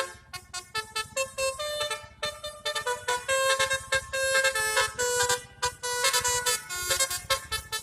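Basuri 'telolet' musical bus horn playing a quick tune of short horn notes that step up and down in pitch.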